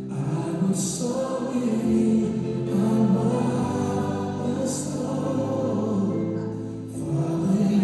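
Music: a choir singing a slow gospel-style song with long held notes.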